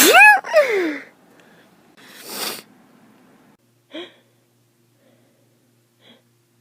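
A person sneezing with a cold: a loud, voiced sneeze at the very start, trailing off in a falling voiced sound within about a second. This is followed by one short breathy exhale about two seconds in.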